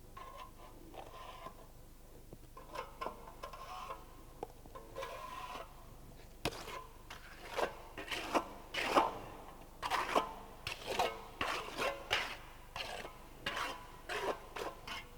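Steel float scraping over fresh concrete, smoothing the top of a filled test mould. Faint, scattered scrapes at first, then from about halfway through a run of quicker, louder strokes, about two a second.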